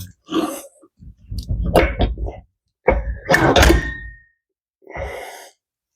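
Irregular clunks and clatter of metal tools and parts being handled and set down, in several short bursts. One knock about three and a half seconds in leaves a brief metallic ring.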